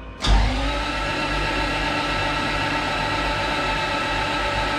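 Toyota 2JZ inline-six being cranked over on its starter motor with the spark plugs out and ignition disabled, priming the oil system to build oil pressure. The starter kicks in sharply just after the start, whines up briefly as it spins up, then turns the engine over evenly and steadily.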